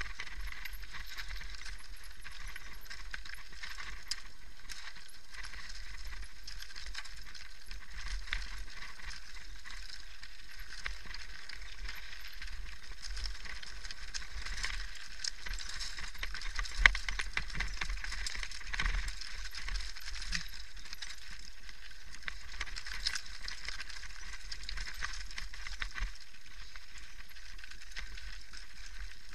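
Mountain bike rolling down a loose, rocky gravel trail: tyres crunching over stones while the bike and its camera mount rattle steadily, with one sharp knock a little past halfway.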